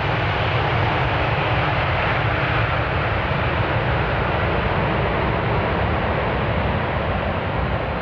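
Jet engines of a Boeing 767-332(ER) airliner running during its landing roll. It is a steady, even roar with a heavy low rumble.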